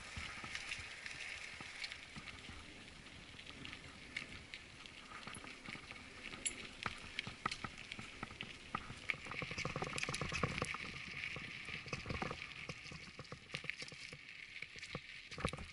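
Mountain bike rolling over a loose gravel and dirt trail: tyres crunching on stones, with frequent irregular clicks and rattles, busiest around the middle.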